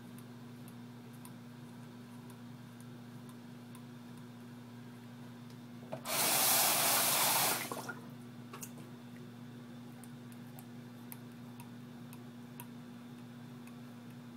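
Bathroom sink tap turned on for just under two seconds, water rushing into the basin to rinse the razor mid-shave. Before and after it, faint short clicks as the cartridge razor scrapes at the mustache.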